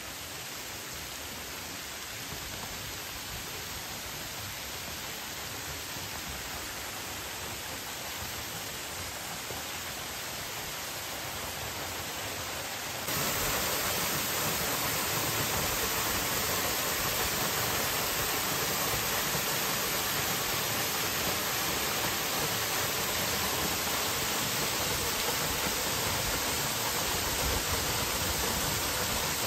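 Waterfall rushing: a steady hiss of falling water, which gets abruptly louder about thirteen seconds in.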